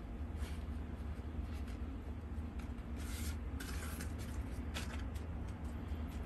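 Hands pressing and smoothing loose potting mix of sawdust, compost and a little soil in a plastic pot: soft crackly rustling and scratching, densest about three to four seconds in, over a steady low hum.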